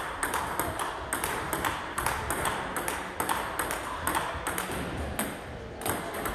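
Table tennis rally of backhand strokes: a quick, steady run of sharp clicks as the ball strikes the bats and the table, several a second, thinning briefly about five seconds in.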